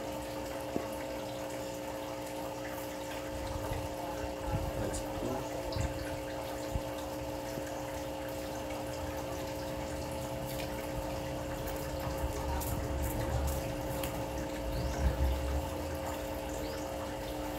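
Steady hum of a small motor with a few held tones under a faint hiss. A few low rumbles come in the second half.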